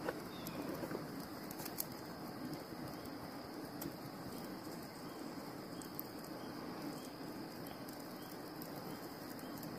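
A small campfire of dry twigs and lichen tinder catching, with faint scattered crackles over a steady, quiet outdoor hiss.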